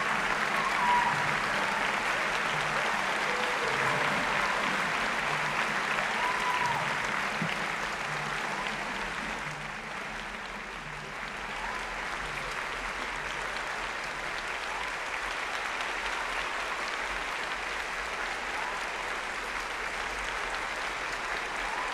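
Steady applause from an audience, easing slightly about ten seconds in and then holding.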